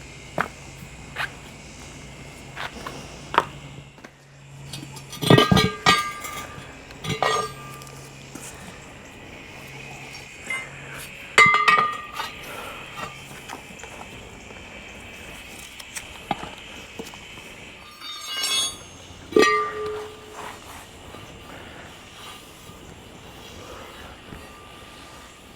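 Metal tools and tire-changing gear clanking, with several sharp ringing clinks and knocks spaced a few seconds apart and lighter clicks between them. A low steady hum runs underneath and fades out about halfway through.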